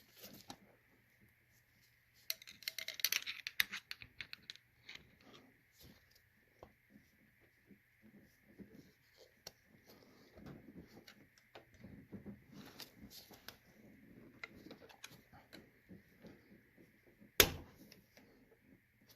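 Metal tools clicking and scraping on the valvetrain as a stuck rocker arm is pried at, with a quick run of rattling clicks about two to four seconds in and one sharp click near the end, the loudest sound.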